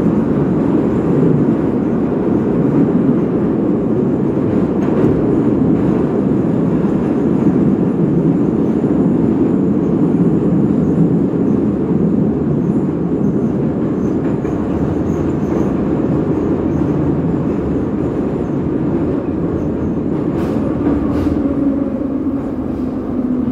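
Metro train running between stations, heard from inside a crowded car: a loud, steady rumble of wheels on rail and traction gear. A few sharp clicks come through about five seconds in and again near the end, where a low steady tone also comes in.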